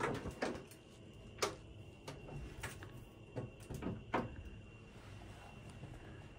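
Plastic knocks and clicks as the seat and lid of an electronic bidet toilet are pushed down and closed, a series of separate sharp taps over the first four seconds, then only a faint steady background.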